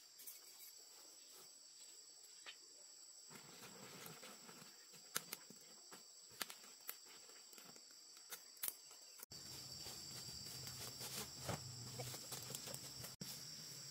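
Faint, steady, high-pitched drone of insects, with scattered light clicks and rustles. About nine seconds in, a low steady hum joins it.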